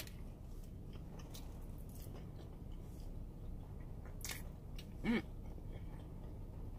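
A person chewing a mouthful of fried chicken and glazed doughnut sandwich with the mouth closed, with faint wet mouth clicks. There is a short hummed 'mm' about five seconds in.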